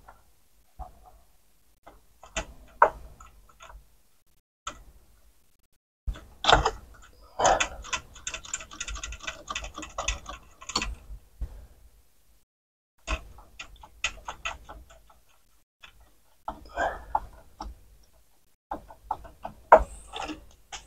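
Plastic parts inside an opened CD changer's mechanism being handled and worked by hand: scattered clicks and light rattles, with a busier run of rapid clicking from about six to eleven seconds in.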